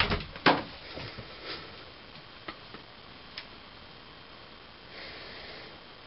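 Bengal cat leaping up at a glass storm door: two loud thumps against the door in the first half-second, then a few lighter knocks and taps as it drops back and lands.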